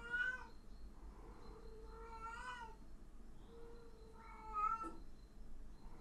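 A cat meowing three times, about two seconds apart, each call rising and then falling in pitch.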